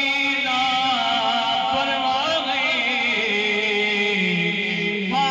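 A man's solo voice chanting a Saraiki naat in long held notes, sliding down in pitch about three seconds in and holding a lower note near the end.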